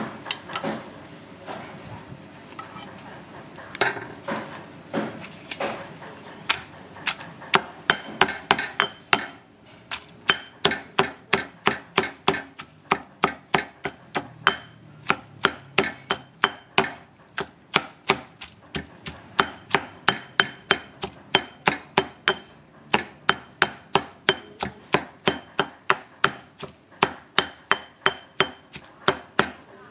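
Rhythmic chopping on a wooden block, probably a cleaver, with a short metallic ring on some strokes. The strikes are irregular at first and settle into a steady rate of about three a second around six seconds in.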